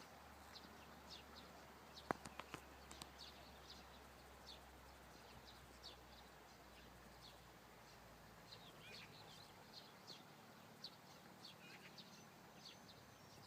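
Small birds chirping, many short high chirps. A few sharp clicks about two seconds in, and a faint low hum that fades out about halfway.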